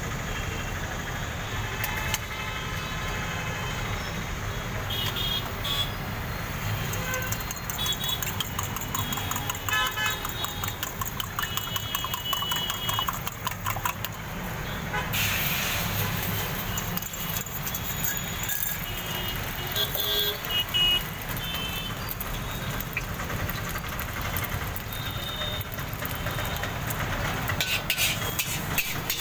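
Roadside street noise: a steady traffic rumble with vehicle horns honking several times, mixed with the running of the gas burner under an iron wok and scattered metal clinks.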